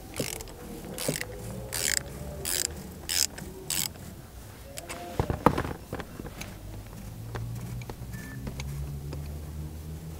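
Ratchet wrench with an extension and 36 mm socket unscrewing a car's oil filter housing: about six short rasps of the ratchet clicking over in the first four seconds, then a few sharp clicks about five seconds in.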